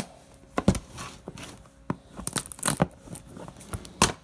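Paper and cardboard packaging being handled as a box is opened: a string of sharp crackles, rustles and tearing sounds, loudest about a second in and just before the end.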